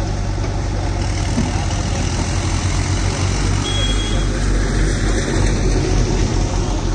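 Sonalika DI-50 tractor's diesel engine idling steadily.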